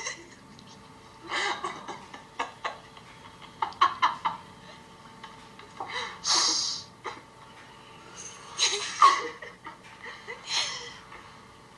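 People laughing and giggling in about five short bursts, the loudest and breathiest one about six seconds in.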